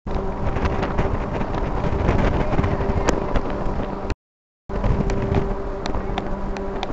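Honda NX Falcon motorcycle's single-cylinder engine running at a steady speed while riding, with wind buffeting the microphone and a few sharp clicks. The sound drops out for half a second about four seconds in, then carries on.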